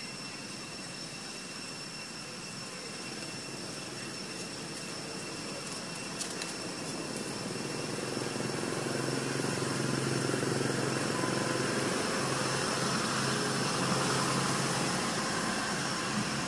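Distant engine hum that grows louder about halfway through and eases off near the end, over a steady high-pitched whine and hiss.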